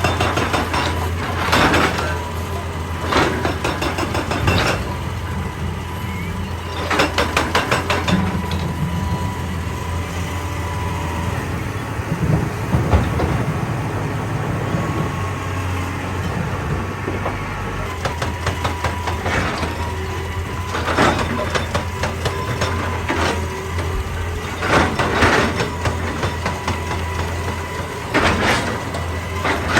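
Heavy excavator working rock: its diesel engine runs steadily under load, broken every few seconds by bursts of rapid hammering impacts on rock.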